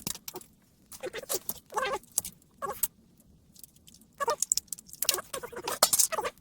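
A run of short squeaks and clicks, about a dozen, from the plastic casing and glued 18650 cells of a laptop battery pack as it is pried apart and scraped.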